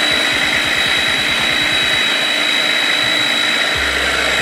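Small electric mini food chopper running steadily, puréeing chopped green herbs and vegetables into seasoning, with a steady high-pitched whine.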